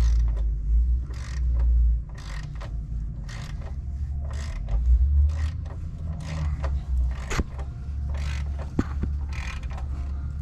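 Hand tools clicking and scraping on metal in irregular strokes while a bolt is turned to draw a locating pin into the BMW F80 M3 engine's timing-chain end, with a couple of sharper clicks about seven and nine seconds in. A steady low hum runs underneath.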